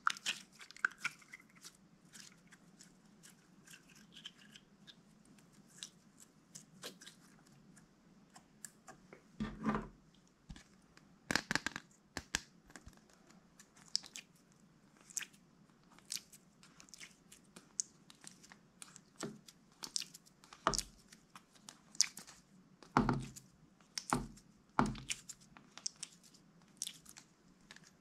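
Clear glitter slime being handled and pressed with the fingers, making irregular sticky clicks and pops, with a few louder ones about ten seconds in and again near the end.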